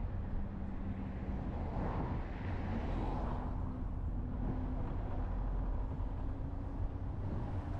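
A vehicle's engine humming steadily under a low rumble of road noise, heard from inside the vehicle as it drives along.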